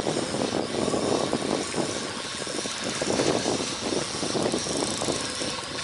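A boat's motor running.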